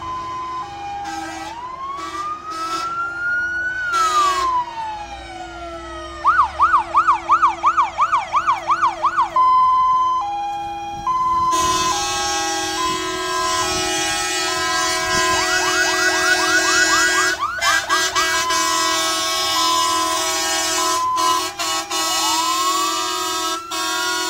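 Several fire engine sirens sounding at once: a slow wail that rises and then falls, bursts of fast yelp at about three cycles a second, and a two-tone hi-lo pattern stepping between two pitches, over a steady lower tone.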